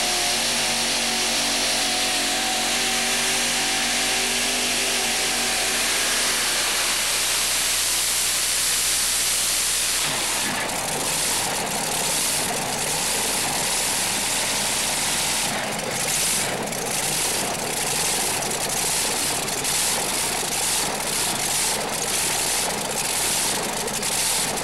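Multi-engine modified pulling tractor running flat out with a steady, high engine note. About ten seconds in, the note gives way to a rough, uneven rumble with hiss as the tractor comes to a stop at the end of its pull.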